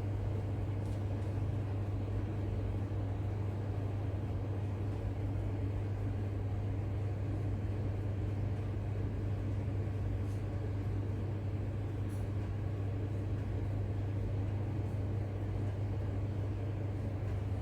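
Electric fan oven running with a steady low hum while the pizza cooks, with a few faint ticks.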